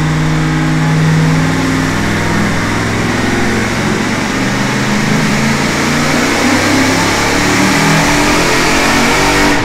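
Carbureted 461-cubic-inch Pontiac V8 on an engine dyno under load in a tuning pull, its pitch climbing slowly and steadily as the revs rise from about 2,700 to about 4,700 rpm. This is the final pass after changes to jetting, fuel pressure and ignition timing.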